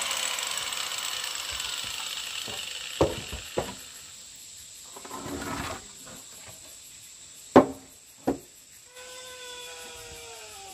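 A power drill winding down with a falling whine, then a few sharp knocks and a brief scrape from work on the wooden roof frame. About nine seconds in, an insect begins a steady chirring call.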